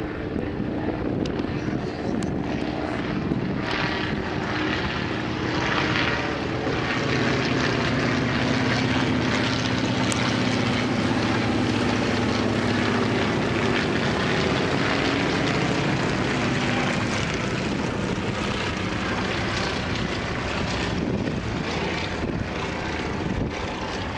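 Propeller drone of a World War I replica biplane's piston engine flying overhead. It grows louder a few seconds in, holds steady, and eases a little near the end, with the engine note sagging slightly in the middle as the aircraft passes.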